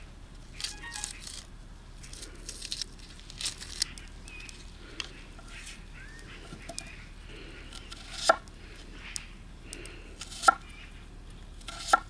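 Food being cut and handled: scattered sharp knife knocks on a board with light rustling between them, the loudest knocks coming about eight and ten and a half seconds in and again near the end.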